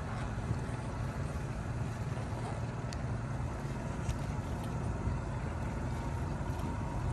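Steady low rumble of boat traffic with a wash of river water, heard aboard a wooden rowing boat. Two light knocks from the wooden oars come about three and four seconds in.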